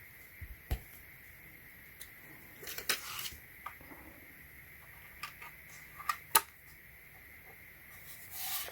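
Hands handling a bench power supply and its small parts: scattered light clicks and short rubbing scrapes, with the sharpest click a little past six seconds in.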